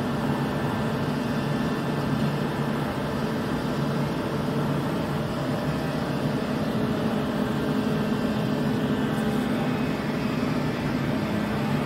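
Steady hum of running machinery, a continuous drone made of several steady low tones with no knocks or changes.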